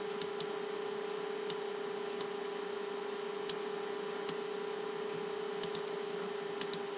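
Steady electrical hum on one tone, with hiss. A few faint, sharp mouse clicks come at irregular intervals as lines are drawn.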